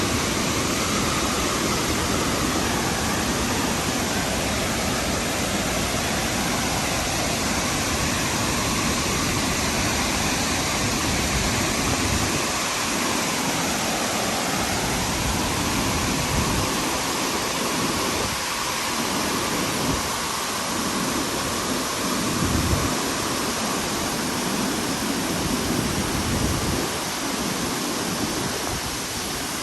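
Burney Falls, a 129-foot waterfall, pouring into its basin: a steady, even rush of falling water, its low end swelling and fading irregularly.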